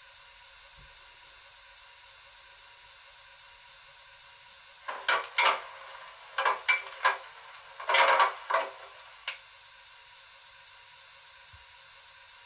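Sound decoder of a Bachmann J11 model steam locomotive playing through its small onboard speaker: a steady background hiss, with a cluster of about nine short, irregular bursts of steam-like noise starting a few seconds in and ending about three quarters of the way through.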